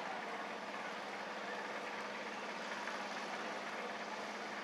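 A steady engine idle with a constant low hum, under an even wash of background noise; nothing sudden happens.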